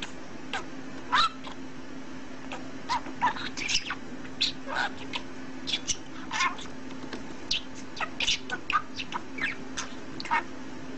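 Budgerigar chattering in a quick string of short, high chirps.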